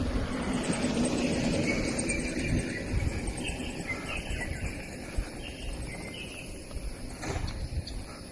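Birds chirping with short, repeated high notes and a fast high trill, over a low hum that fades out over the first few seconds.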